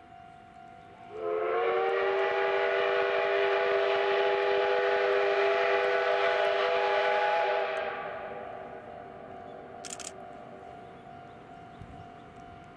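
Steam whistle of the C58 363 steam locomotive, one long blast of about six seconds. It sounds as a held chord of several tones that slide up slightly as it opens, then fades away.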